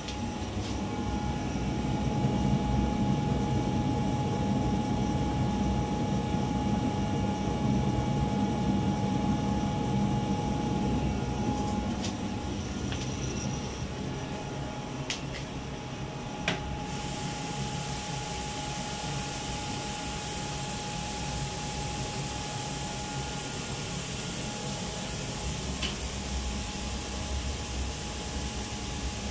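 Radonett A1UV radon aerator running: the steady hum of its fan and water pump, with a constant whine over a low rumble. A few small clicks come near the middle, and about halfway through a steady high hiss joins.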